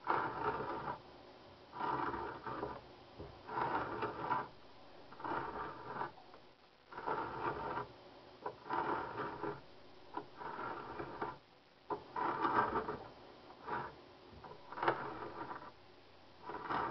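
A 2-inch barn auger bit boring by hand through an oak board: its lips shave the wood in a regular run of scraping strokes, one about every one and a half to two seconds, with a few sharp clicks among them.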